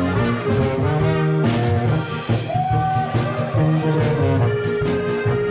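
Oompah band playing a Bavarian tune, with clarinet, trumpet and a baritone horn over guitar and a steady oom-pah bass.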